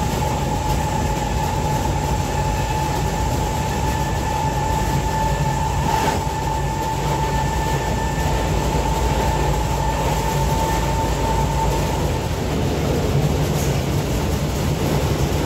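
Inside the motor car of a Z20500 double-deck electric commuter train under way: steady low rolling rumble with a steady high electric whine over it. The whine fades about twelve seconds in and comes back near the end, and a single sharp knock sounds about six seconds in.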